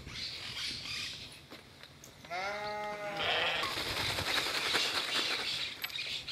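A lamb bleats once, a short call about two seconds in, followed by a steady rushing hiss lasting a few seconds.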